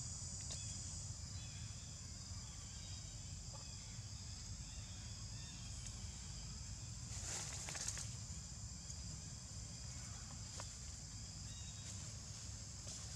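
Forest ambience: insects droning steadily at a high pitch over a low rumble, with a brief rustle about seven seconds in.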